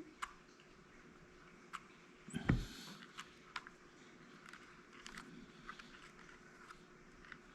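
Small sharp clicks and taps from handling a soldering iron and a thin wire at a workbench, with one louder knock about two and a half seconds in. A faint steady hum runs underneath.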